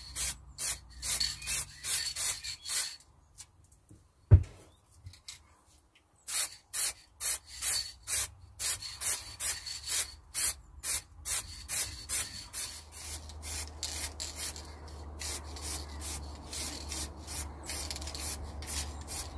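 Aerosol can of metallic spray paint hissing in rapid short bursts, about two to three a second, as light coats are built up on a scooter wheel. A single sharp knock about four seconds in.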